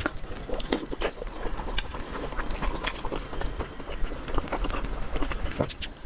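Close-miked chewing and mouth sounds of someone eating: a rapid, irregular run of wet clicks and smacks.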